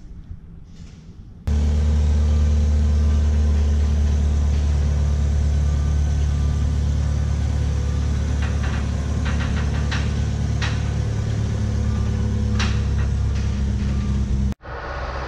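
A machine running steadily with a loud, low hum, with a few sharp clicks in the second half. It starts abruptly about a second and a half in and cuts off suddenly just before the end.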